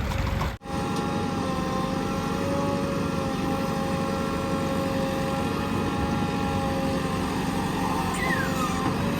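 JCB 3DX backhoe loader's diesel engine running steadily, with a few steady whining tones over the rumble. The sound drops out briefly about half a second in.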